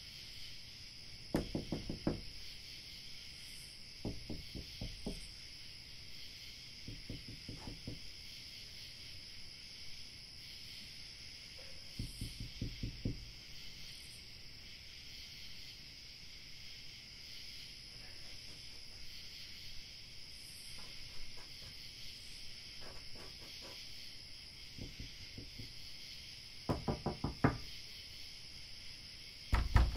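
Bursts of rapid knocking, several quick knocks under a second each, come about eight times at uneven gaps; the loudest are near the end. A steady high chirring like crickets runs underneath.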